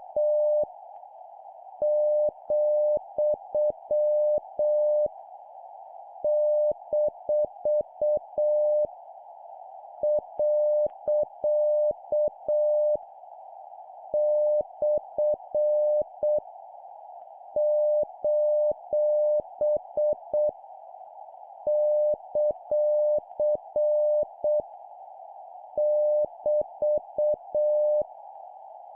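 Morse code practice: a single steady tone keyed on and off in dots and dashes, sending punctuation characters at 7 words per minute, with a pause of about a second between characters. Under it runs a steady hiss confined to a narrow band around the tone.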